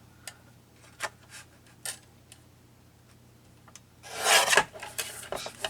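Paper being handled on a crafting table: a few light clicks and taps, then a short rasping scrape of paper about four seconds in.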